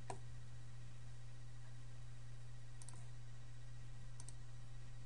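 Computer mouse clicking: a pair of short clicks about three seconds in and another pair about a second later, over a faint steady low hum.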